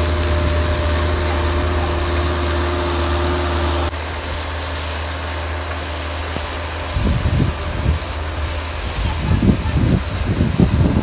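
Bobcat skid-steer loader's engine running steadily while clearing snow. The sound drops a little and a higher tone stops about four seconds in. From about seven seconds, irregular gusts of wind buffet the microphone.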